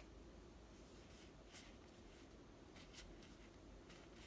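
Faint, short swishes of Yu-Gi-Oh trading cards sliding against one another as a stack is fanned through by hand, about five light strokes spread across.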